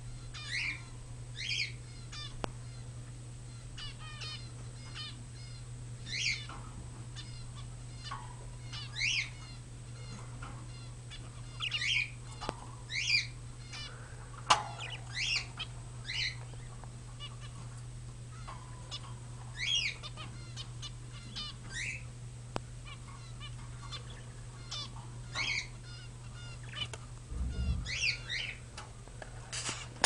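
Caged budgerigars (parakeets) chirping and warbling in short calls every few seconds, over a steady low hum. A single sharp click sounds about halfway through.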